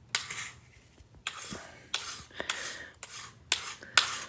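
A hand scraper scraping hydrogen peroxide paste off a hardwood floor in short repeated strokes, roughly two a second, each beginning with a sharp scrape.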